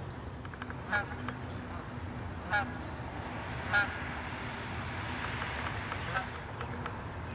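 Bird calling: four short, sharp calls spaced a second or more apart, over a steady low rumble.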